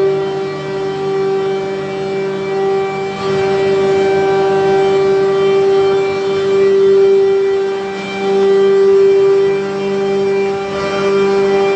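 A loud, steady drone held at one pitch, with several overtones and gentle swells in loudness.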